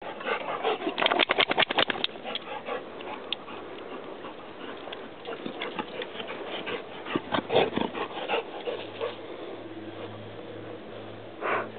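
A dog moving about close by: a quick run of sharp clicks and flaps about a second in, then scattered rustles and footfall-like knocks. A low steady hum comes in near the end.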